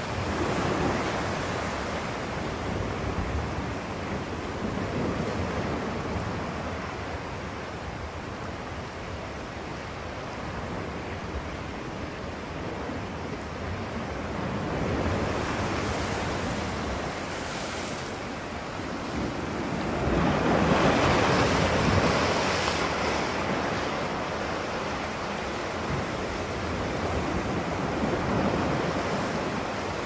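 A steady rushing noise with no distinct events, swelling and fading and at its loudest about two-thirds of the way through.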